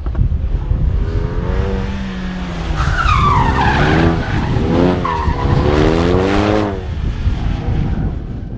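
Renault Mégane RS's turbocharged four-cylinder engine revving hard, its pitch rising and falling several times, as the car is driven past at speed. Its tyres squeal through the corner about three to four seconds in and again briefly about a second later. The sound fades near the end.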